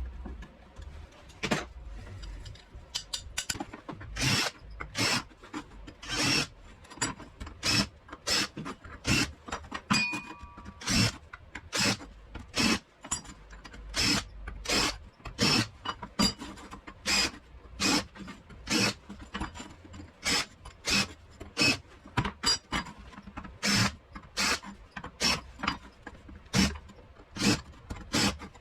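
Repeated scraping strokes of a hand tool on a workpiece, about one or two a second, in an uneven working rhythm.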